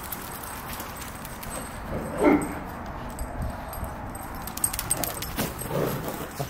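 Dogs running after a thrown toy, their collar tags jingling and clicking, with one short loud dog vocalization about two seconds in and a weaker one near the end.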